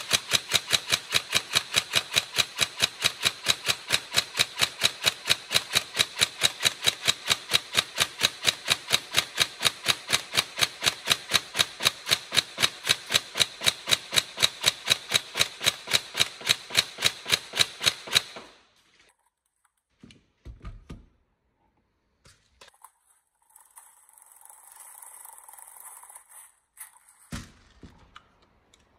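Tokyo Marui 416 NGRS electric airsoft rifle, upgraded with a carbon piston and a high-speed motor, firing rapid single shots in a steady rhythm of about four a second for some eighteen seconds, then stopping. A few handling clicks, a soft rustle and a knock follow.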